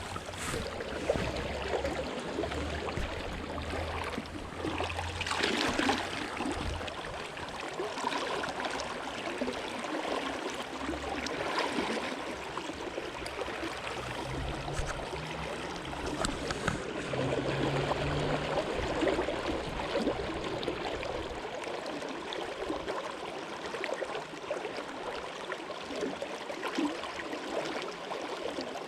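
Steady rush of a flowing stream, with a low rumble coming and going underneath.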